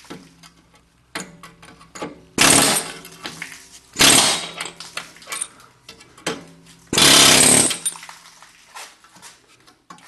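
Pneumatic air hammer fired in three short bursts, each under a second, against a stainless steel exhaust pipe to knock the old exhaust loose, with lighter metal knocks between the bursts.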